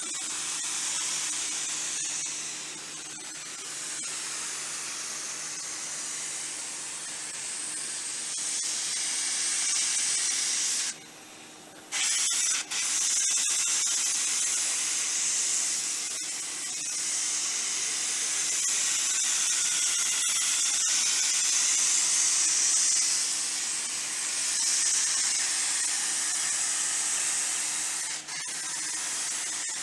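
Paint spray gun hissing steadily as coating is sprayed onto long steel pipes, with a faint steady low hum underneath. The hiss swells and eases and drops out briefly about eleven seconds in.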